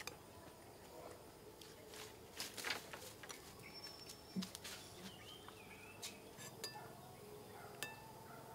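Faint outdoor quiet with a spoon clinking and scraping now and then against a ceramic soup bowl, a small cluster of clicks about two and a half seconds in and single ones later, over faint insect and bird chirps.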